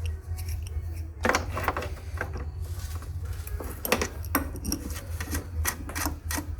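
Metal tools and small parts clinking and clattering as they are handled and rummaged through, in irregular knocks, over a steady low hum.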